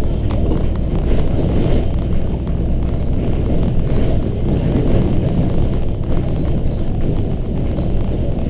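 Inside the cabin of a 2010 Volvo B7RLE single-deck bus on the move: the steady running noise of its six-cylinder diesel engine mixed with tyre and road rumble.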